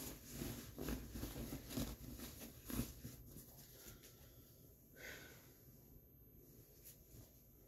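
Clothes and a bag rustling and being handled, with a few soft knocks, dying away after about three seconds. About five seconds in comes a brief faint high sound that falls in pitch.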